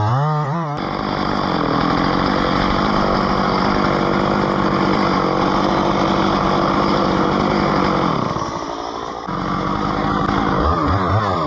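Chainsaw running at high revs, steady as if cutting, easing off briefly about eight seconds in and then revving up again with a wavering pitch.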